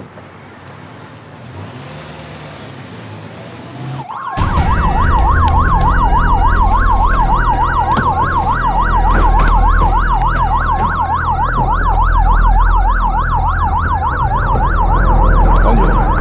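Police car sirens in a fast yelp, the pitch sweeping up and down about three times a second over a low engine rumble. They cut in suddenly about four seconds in, after a quieter stretch of low rumble. A steady siren tone sounds alongside the yelp for several seconds.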